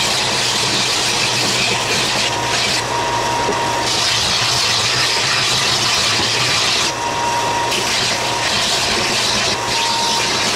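Bench belt sander running steadily while the edge of a plywood star is sanded on the belt, a rasping hiss that swells and eases in spells as the wood is worked.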